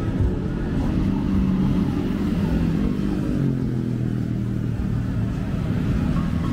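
Road traffic on a busy city street: car, bus and motorcycle engines running past steadily, with a low engine tone that slides down in pitch and then holds about halfway through.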